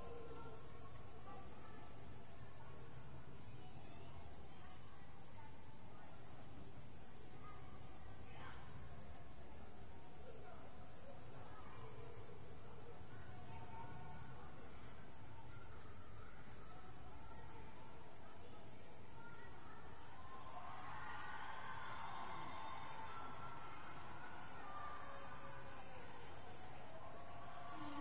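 Crickets chirping in a continuous, high-pitched trill, with fainter sounds lower down.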